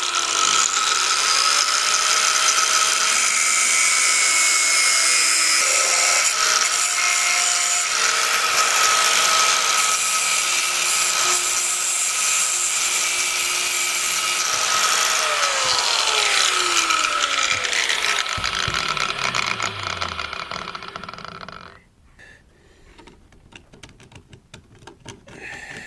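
An electric power tool cutting through the bait pump's inner metal tube, a steady whine with gritty noise. From about 15 seconds in the motor winds down in a falling tone and stops at about 21 seconds.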